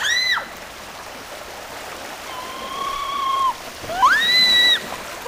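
Water running steadily down a concrete spillway, with children giving three high-pitched, drawn-out cries as they slide. The last cry, near the end, is the loudest.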